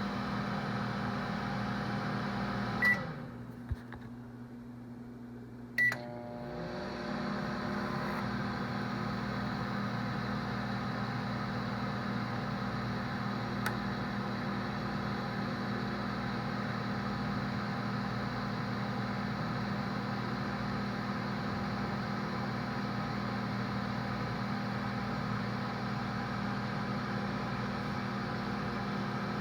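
Microwave oven running with a steady hum. About three seconds in, a single beep sounds and the hum cuts out; a click follows. About three seconds later another beep sounds and the oven starts up again, humming steadily.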